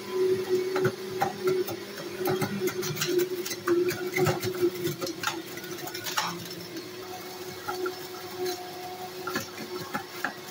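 AICOOK electric juicer motor running with a steady hum while fresh aglione garlic cloves are pushed down the chute and shredded, with many irregular clicks and rattles as the cloves hit the spinning blade.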